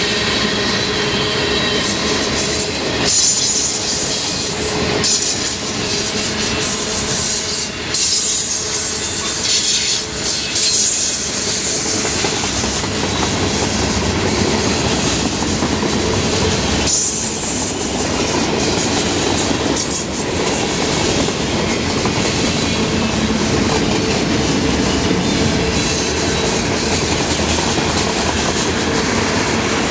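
Freight cars rolling past close by: a steady loud rumble and clatter of steel wheels on rail, with bursts of high-pitched wheel screech and hiss during the first ten seconds or so and again briefly around the middle.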